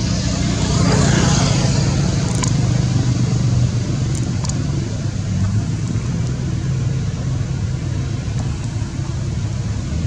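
A motor vehicle engine running nearby, a steady low hum under a spread of road noise, louder in the first few seconds and easing off slightly after that.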